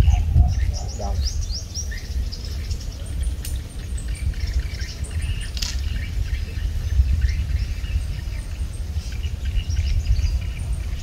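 Small birds chirping again and again, with quick high chirps scattered throughout, over a steady low rumble. A single sharp click comes about five and a half seconds in.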